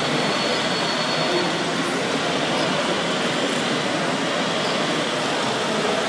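Steady whirring and hiss of radio-controlled model construction machines at work, an RC hydraulic excavator among them. A faint high whine sits over it for the first second and a half, then fades.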